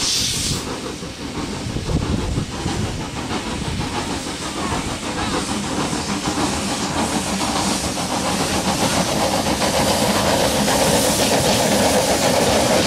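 Two narrow-gauge steam locomotives double-heading a passenger train, the Kerr Stuart 0-4-0T 'Diana' leading, chuffing and hissing steam as they approach, growing louder toward the end.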